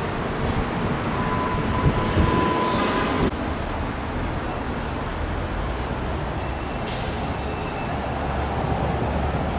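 Steady traffic rumble with high, thin squealing tones over it, one lasting a couple of seconds near the start and shorter, higher ones later.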